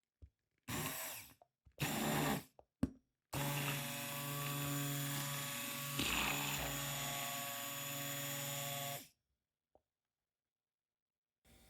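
Electric hand mixer (Luxel 300W) whirring in a bowl: two short bursts, then a steady run of about six seconds before it cuts off.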